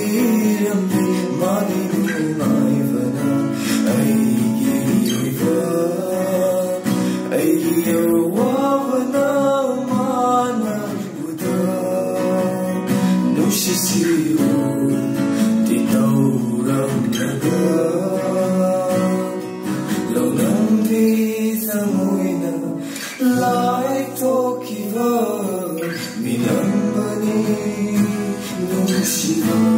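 A man singing a slow song, accompanied by two acoustic guitars strummed and picked.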